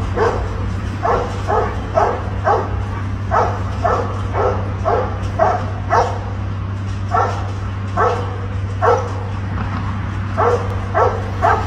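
A dog barking in short, repeated yips, about two a second with a couple of brief pauses, over a steady low hum.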